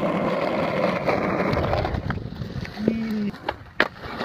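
Skateboard wheels rolling on concrete, a steady grinding rumble that fades out about two seconds in. A short low hum and a couple of sharp knocks follow near the end.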